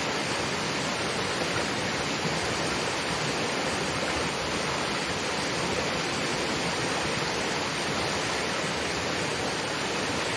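Fast-flowing mountain river rushing steadily: a constant, even wash of water noise from a strong current.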